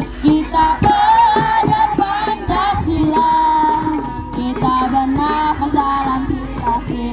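Music: a song with a held, wavering melody line over a regular percussive beat.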